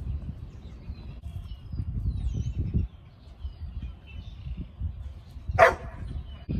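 A dog barks once, sharply, about five and a half seconds in, over a low rumble and faint bird chirps.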